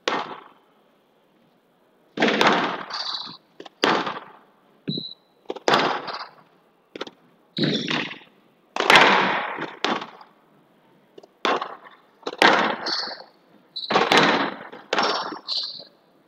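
Squash rally: sharp smacks of the ball off the rackets and the walls, about a dozen in all, each ringing on briefly in the glass court, with short high squeaks in between.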